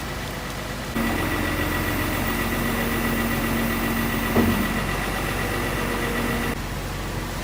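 Steady mechanical hum of a running engine or motor. It starts suddenly about a second in and cuts off suddenly near the end, with one short knock partway through.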